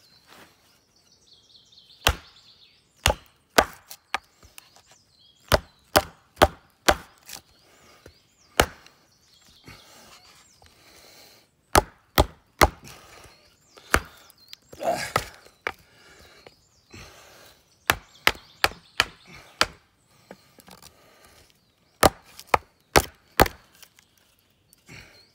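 Wooden baton striking the spine of a 1075 carbon-steel bushcraft knife, driving the blade down through a knotty log: a series of sharp wooden knocks in bursts of a few strikes with short pauses between. About halfway through there is a longer, rougher sound.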